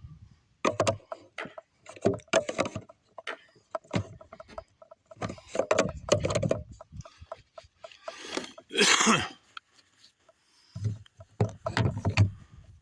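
Riot Edge 13 kayak being paddled: irregular knocks and clatter on the hull and water splashes, with a longer splash about nine seconds in.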